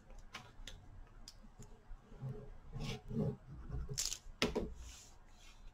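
Cardstock being handled and glued on a craft mat: soft rustles and scattered light taps, with a few sharper clicks about four seconds in.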